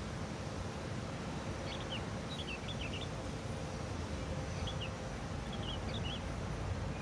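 A small bird chirping in short clusters of quick high notes, several times, over a steady outdoor background hiss.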